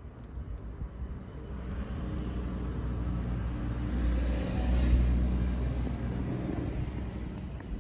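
Engine of a passing vehicle, a low rumble that builds to its loudest about five seconds in and then fades.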